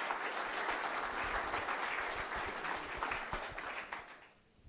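Audience applauding, many hands clapping together, dying away a little after four seconds in.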